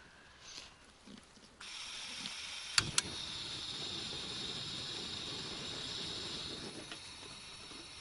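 Portable gas camping stove being lit: gas starts hissing about a second and a half in, two sharp igniter clicks follow about a second later, and the burner then runs with a steady hiss and low rumble of the flame, easing off a little near the end.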